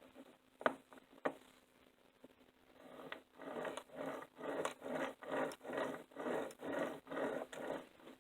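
Two sharp clicks, then a small screwdriver turning a screw into a model locomotive's metal chassis in regular rasping strokes, about two a second. The screw is going into the gear drive hole rather than the screw hole.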